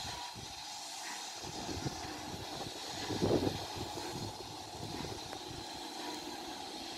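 Pt47 2-8-2 steam locomotive pulling away in the distance with its train, its working sound faint under wind buffeting the phone's microphone. There is a louder swell about three seconds in.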